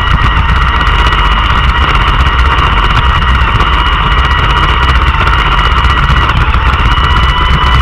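Roomba robot vacuum running: a steady high whine from its vacuum motor and brushes over a low rumble of the machine vibrating, heard from a camera riding on the robot.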